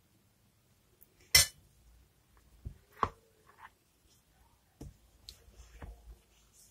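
A metal ladle clinks against the mixing bowls as more flour is added. There is a sharp clink a little over a second in, another about three seconds in, then a few softer knocks and scrapes as a spatula stirs the flour into the dough.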